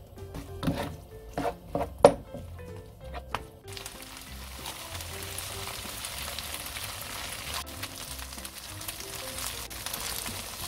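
Rice and gochujang-marinated duck stir-frying in a hot pan: a few sharp knocks of the wooden spatula in the first few seconds, then a steady sizzle from about four seconds in. Background music plays throughout.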